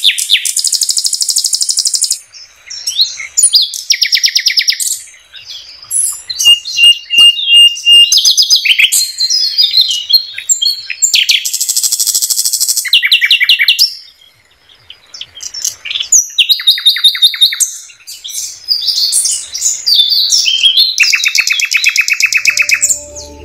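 Nightingale singing a run of varied phrases: fast trills and strings of rapidly repeated notes, with a steady held whistle about seven seconds in and short pauses between phrases.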